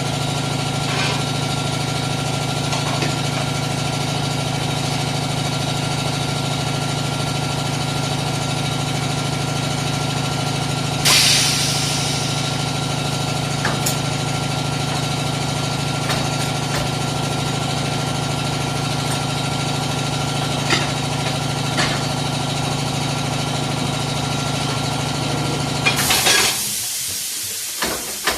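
Electric motor of workshop machinery running with a steady hum, with a few short knocks over it and a brief hiss about eleven seconds in; the motor switches off about 26 seconds in and winds down.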